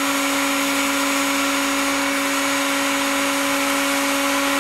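Handheld electric heat gun running steadily: a constant motor hum at one pitch over the rush of hot air, heating PVC pipe to soften it for bending.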